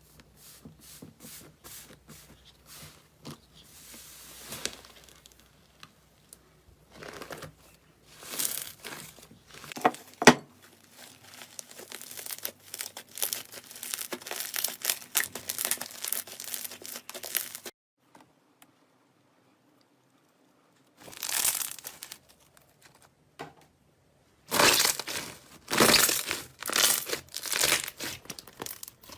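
Slime being squeezed and pressed by hand, making crackling, crinkling sounds in a run of separate clips. It goes quiet for a few seconds past the middle, and the crispest, loudest crackles come near the end.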